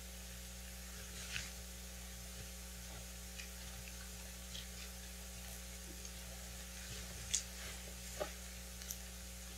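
Quiet room tone with a steady electrical hum over a faint hiss, broken by a few small clicks and rustles, the most noticeable a little past seven seconds in.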